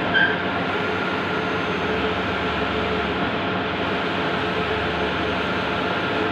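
Large-format outdoor digital printing machine running steadily, a constant mechanical whir with a few steady hum tones. A brief high chirp sounds just after the start.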